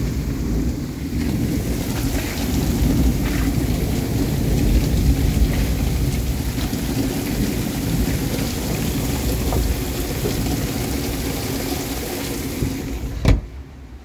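Heavy storm rain pouring down on the water and the houseboat, a loud steady hiss with a deep rumble beneath. Near the end a single sharp knock, like a door shutting, cuts the rain down to a much quieter, muffled sound.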